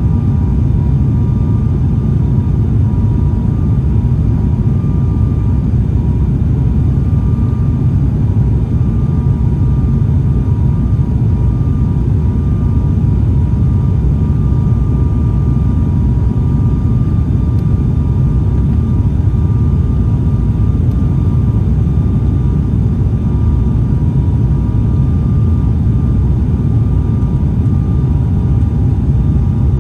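Steady cabin noise of a turboprop airliner's engines and propellers: a loud low drone with two faint steady tones above it.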